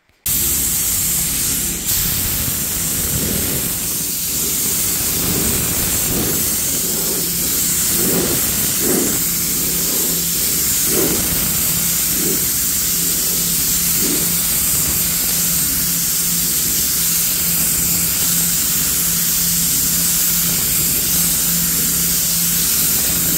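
Compressed-air paint spray gun hissing steadily as it sprays primer, over a steady low hum.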